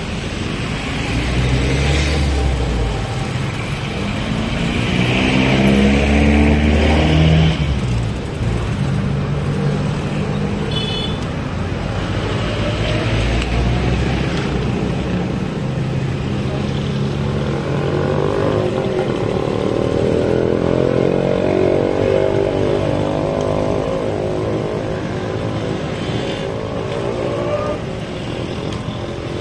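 Small motorcycle engines working up a steep hill, their note rising as they pull, loudest a few seconds in and swelling again through the second half.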